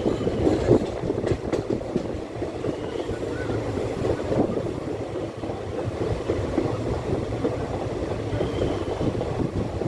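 Passenger train running, heard from inside the coach: a steady rumble of wheels on the rails, with many irregular clicks and knocks.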